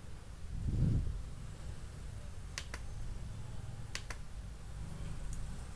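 Two computer mouse clicks, each a quick double tick (button press and release), over a low steady hum. A soft low thump comes about a second in.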